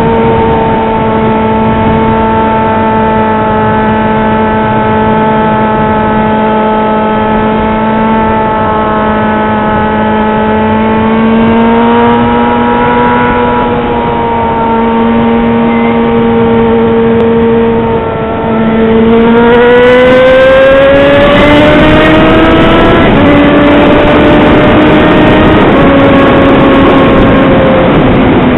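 Yamaha XJ6's 600 cc inline-four engine running loud under way, its note held steady for a long stretch. About two-thirds through it dips briefly, then climbs in pitch as the bike accelerates, shifting in steps before easing down near the end.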